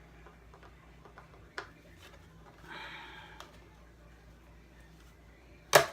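Screwdriver working at a mirror on a plastic RC car body: faint ticks and a click, a short scrape about three seconds in, and one sharp knock near the end.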